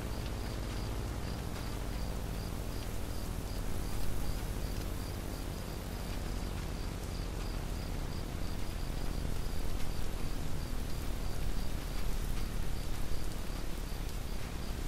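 Steady background hiss with a faint high chirp repeating about twice a second; no siren tone is heard.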